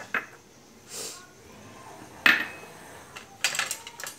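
Steel kadhai and utensils clinking: a few light clicks, one sharp ringing metal clink a little after two seconds, and a short rattle of clinks near the end.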